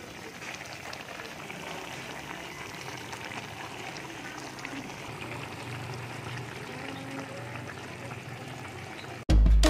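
A pan of fish frying and simmering, a steady sizzle with fine crackling. Loud music cuts in suddenly near the end.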